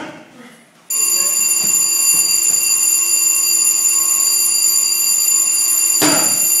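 A boxing gym's electric round timer ringing steadily and continuously for about six and a half seconds, signalling a round change. A single thud sounds about six seconds in.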